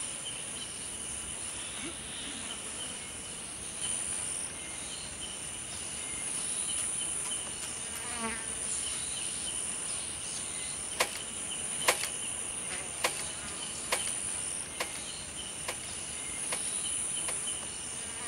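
Steady insect chorus: a high continuous trill over a lower, rapidly pulsing chirp, with a few sharp clicks in the second half.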